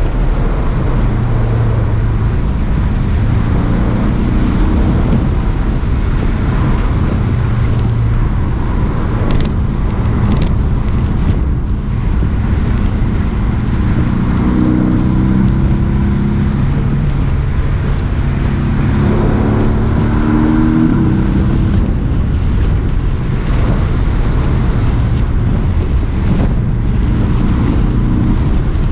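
Porsche 718 S's 2.5-litre turbocharged flat-four engine driving under steady wind and road noise, its pitch climbing several times as it accelerates.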